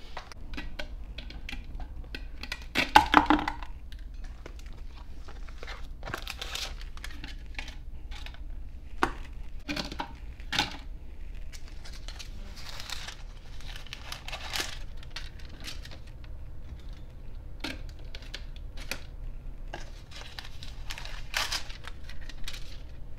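Handling sounds of chaffles being stacked into a clear storage canister with parchment paper rounds between them: paper rustling and crinkling with scattered clicks and taps, and a louder clatter about three seconds in.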